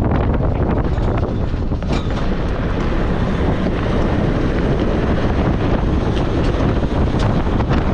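Off-road vehicle driving on a dirt and gravel track. Wind buffets a microphone mounted outside the vehicle and covers the engine and tyre noise, with scattered short clicks and knocks from the track.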